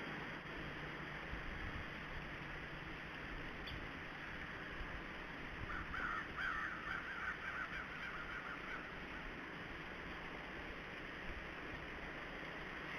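Red-bellied woodpecker calling: a quick run of short notes about six seconds in, lasting about three seconds, over a steady outdoor hiss.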